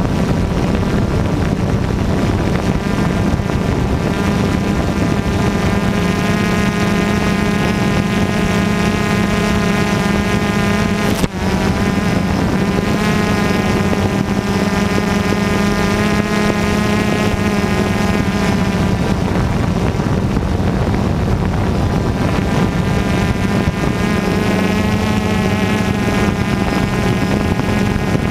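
DJI Phantom 2 quadcopter's electric motors and propellers running in flight, a steady loud buzz picked up by its own onboard camera, with the pitch wavering slightly as it manoeuvres. A brief click about eleven seconds in.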